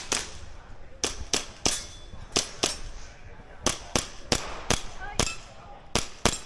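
Airsoft gun firing about a dozen sharp shots during a timed IPSC course of fire, mostly in quick pairs.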